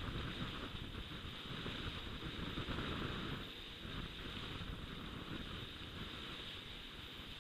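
Wind noise on the camera microphone over the low rumble of mountain bike tyres rolling on a dirt trail, steady with small rises and falls.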